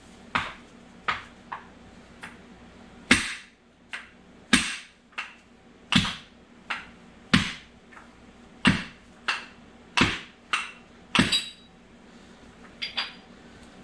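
A long run of sharp metal-on-metal hammer blows, heavier ones about every second and a half with lighter taps between, some with a short ring. The blows drive tightly fitted transmission gears down a gear shaft against a wood block, and the gears come off only slowly.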